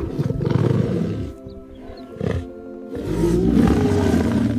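Lion roaring over background music, with two long roars, one at the start and one past the middle, and a short burst between them.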